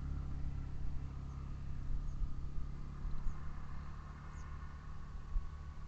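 Steady low engine hum, with a few faint high chirps.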